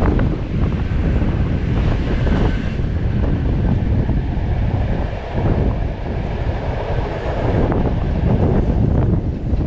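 Passenger train running at speed, heard from an open carriage window: wind buffeting the microphone over a steady rumble of wheels on the track.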